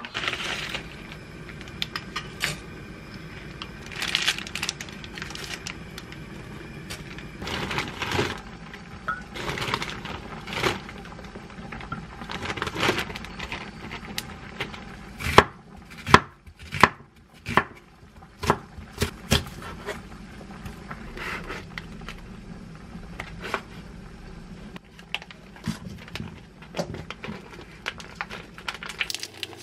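Kitchen food-prep handling sounds: plastic bags and packaging rustling, and scattered knocks and taps on a wooden cutting board and dishes, busiest about halfway through. A steady low hum runs underneath.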